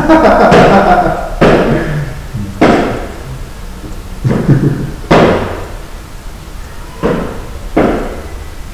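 About six loud bangs at uneven intervals, each ringing briefly in a large echoing hall, with voices in the first second or so.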